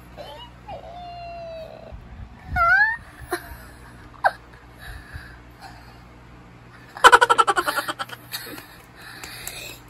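A young girl laughing: a few short high vocal sounds, one rising sharply, then a loud burst of quick giggles about seven seconds in.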